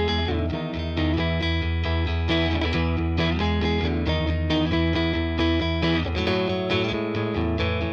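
Background music led by electric guitar, with a steady rhythm and a chord change about six seconds in.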